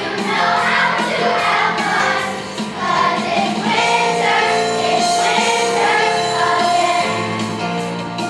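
Children's chorus singing in unison with instrumental accompaniment, long held notes over a steady bass line.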